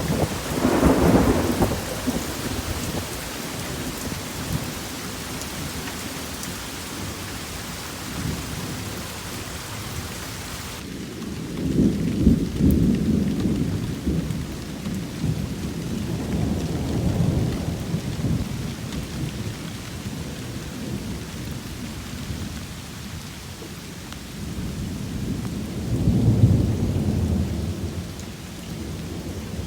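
Thunderstorm: rain falling steadily while thunder rolls low several times, loudest near the start, about twelve seconds in and near the end. The hiss of the rain thins suddenly about a third of the way in.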